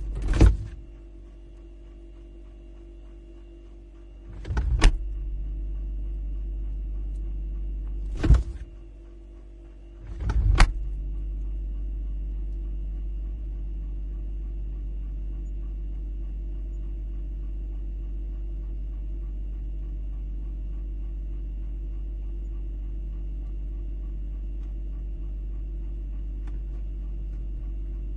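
Refrigerator door shut, opened, shut and opened again, four door sounds in the first eleven seconds. Each shut is a sharp thump that leaves the steady hum muffled. Each opening swells briefly as the seal lets go, and the hum comes back louder after it.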